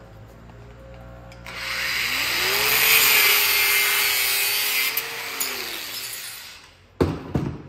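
Angle grinder spinning up and grinding metal held in a vise: a loud steady hiss of the disc on the metal over the motor's whine. Near the end the motor winds down, its pitch falling, and a couple of sharp knocks follow.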